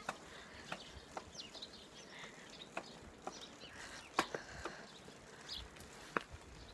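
Irregular clicks and knocks from a bicycle and a hand-held phone while riding, about eight in all, with the loudest a little past four seconds in. A few faint bird chirps sound in the background.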